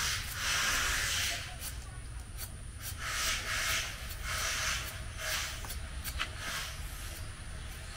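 A knife scraping and peeling the skin off produce in short, uneven rasping strokes, about one a second, over a steady low hum.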